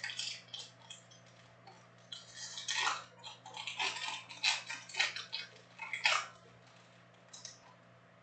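Foil wrapper of a 2006 Panini World Cup trading-card pack being torn open and crinkled by hand: a run of sharp crackles that dies away about six seconds in.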